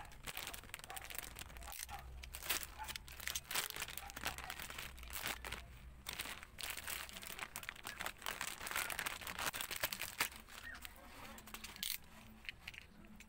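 Plastic packaging of a new motorcycle speedometer cable crinkling and rustling as it is handled and opened, a dense run of crackles that stops about a second before the end.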